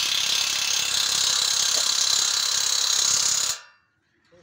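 Cordless drill running steadily, then stopping abruptly about three and a half seconds in.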